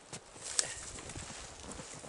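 Footsteps crunching in snow and evergreen boughs rustling as they are handled, with one sharp snap about half a second in and several dull thuds.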